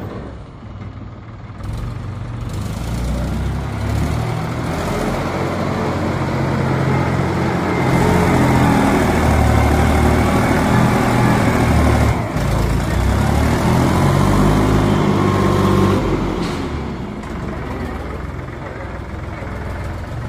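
Mahindra 265 DI tractor's three-cylinder diesel engine running while it works a front loader, revving harder for several seconds in the middle, with a whine that rises and falls over the engine note.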